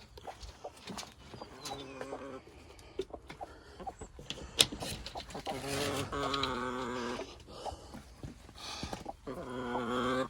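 Domestic hens making drawn-out, wavering calls three times, the middle one the longest, with scattered clicks and knocks between.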